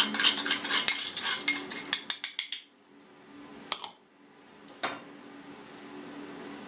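A spoon clinking and scraping rapidly against a small glass dish held over a stainless steel mixing bowl, knocking out seasoning that has stuck to it. This runs for about two and a half seconds, and then come two single clinks about a second apart as the glass dish is put down.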